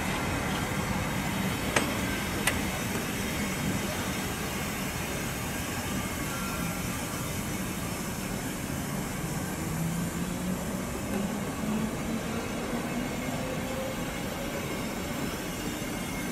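Train of Deutsche Reichsbahn passenger coaches rolling past along the platform: a steady rumble of wheels and running gear, with two sharp clicks about two seconds in.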